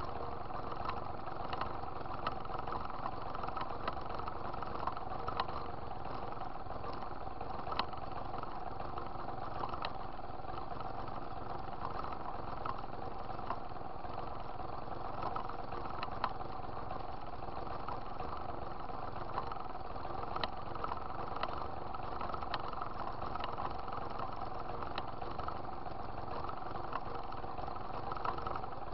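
Small moped engine idling steadily, with occasional light ticks.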